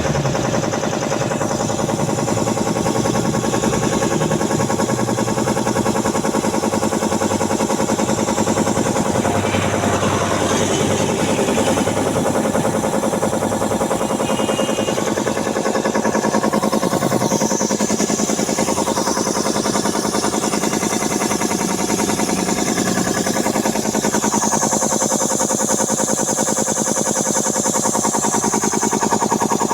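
Puma 3080 piston air compressor running steadily under test, with a fast even pulsing over a steady motor hum.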